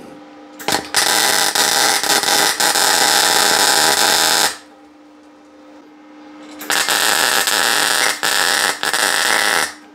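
A wire brush on a power tool scouring an exhaust pipe, cleaning old weld spots down to bare metal for welding. It runs in two long bursts, about four and three seconds, with a short pause between them.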